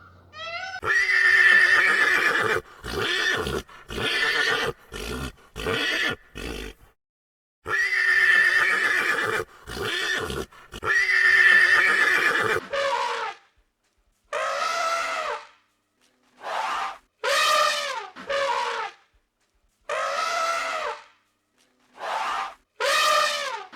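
A horse neighing over and over: several long whinnies with short calls between, then shorter calls about a second long that rise and fall in pitch.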